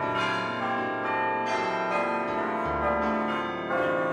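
Church bells ringing together in a peal, several bells struck one after another so that their ringing tones overlap.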